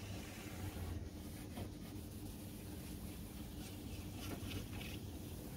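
Wet 2000-grit sandpaper rubbed back and forth by hand over a plastic headlight lens: a faint, steady scratchy rubbing, used to take out the scratches left by the previous coarser sanding.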